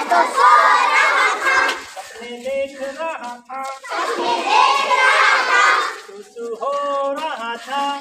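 Children's group action song in call and response: loud chanting by many children near the start and again about halfway, with lines sung by a single voice in between.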